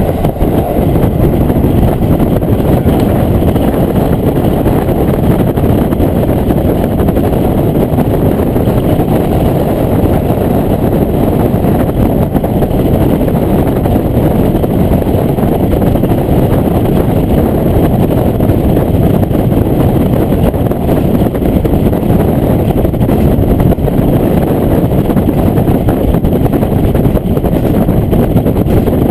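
Diesel railcar running steadily along the line, heard from inside the passenger car: a constant low engine and running noise.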